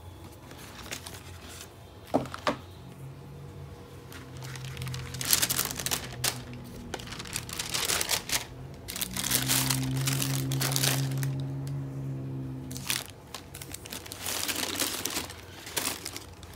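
Tissue paper crinkling and rustling and a cardboard shoebox being handled as the box is opened and the shoes are unwrapped, with a couple of sharp clicks about two seconds in. A low steady tone sounds twice in the middle, for a few seconds each time.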